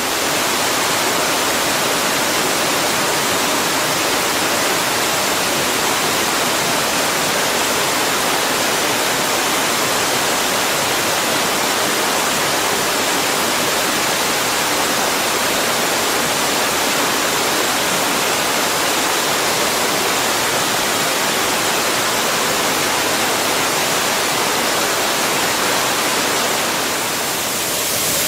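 Steady, loud rush of a waterfall, dipping slightly for a moment near the end.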